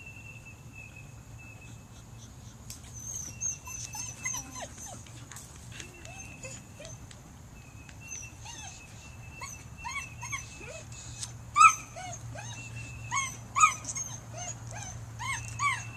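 A dog yipping and whining in short, high cries that rise and fall. They come scattered at first, then in louder runs over the last few seconds.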